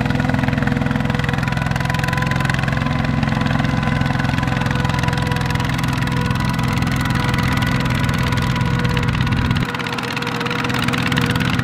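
Single-cylinder diesel engine of a two-wheel walking tractor running steadily under load as it hauls a trailer of rice sacks through deep mud. About ten seconds in, its deep low drone suddenly thins.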